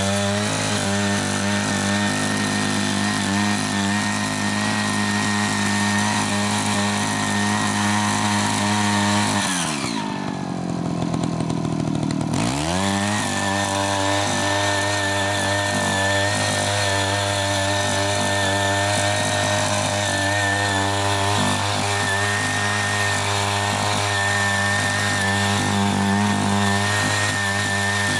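Small 78.5 cc (3.5 hp) petrol engine of a mini foldable garden tiller running at high speed as its rotary tines cut through weedy soil. About ten seconds in the engine slows almost to idle for a couple of seconds, then revs back up and runs steadily again.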